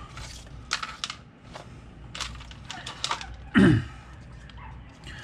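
Plastic clicks and crackling from handling a GoPro Hero13 Black with its battery door open and a plastic packaging tray, with one louder, short sound about three and a half seconds in that drops in pitch.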